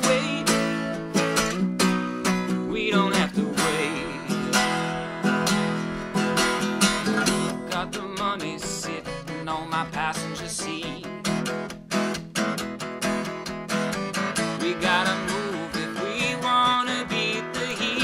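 Background music: an instrumental stretch of a song, led by guitar.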